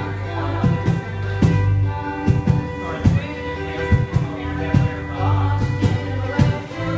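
A live rock band playing: electric bass holding low notes, electric guitar and drums keeping a steady beat of about two hits a second.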